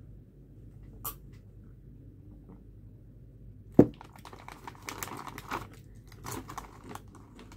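A drinking glass is set down on the table with one sharp knock about four seconds in. Then a crisp plastic chip bag crinkles as a hand reaches in, and chips are crunched.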